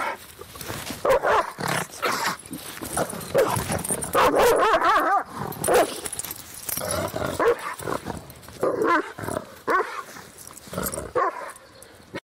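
Dogs barking repeatedly in short, irregular barks, cutting off abruptly near the end.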